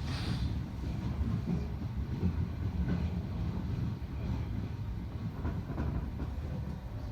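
Train running, heard from inside a passenger car: a steady low rumble of wheels on rail with a few faint clicks and knocks, and a brief hiss right at the start.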